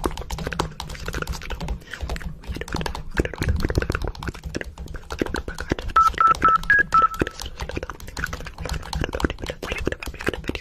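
Rapid irregular clicking over a low hum. About six seconds in, a quick run of five or six short electronic beeps at one pitch, one of them a step higher: a phone's startup tone sequence.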